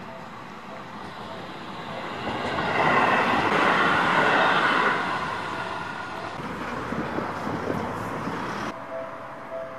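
Seibu 30000-series electric train passing close by: its wheel and running noise swells to a peak about three to five seconds in, then fades. Near the end a faint repeating two-note electronic tone from a level-crossing alarm comes in.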